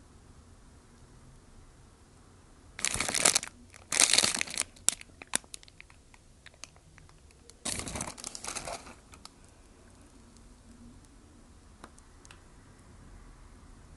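McDonald's paper burger wrapper crinkling and tearing as it is handled and opened by hand. The crackling comes in short bursts about three, four and eight seconds in, with a few light crinkles between them.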